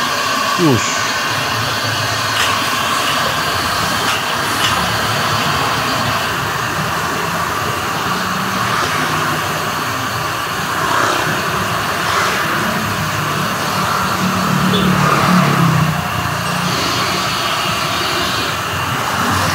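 Steady roar of a street-stall gas wok burner, mixed with street traffic, with a few light clicks of metal utensils.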